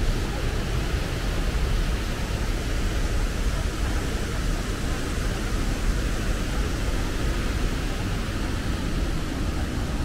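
Steady roar of a waterfall: an unbroken rush of falling water with a deep rumble underneath, constant in level.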